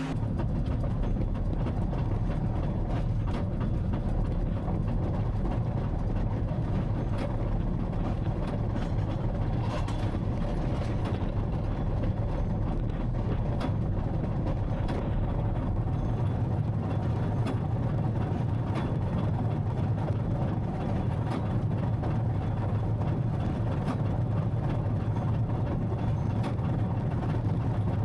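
Farm tractor engine running steadily under load, with continual small clicks and rattles.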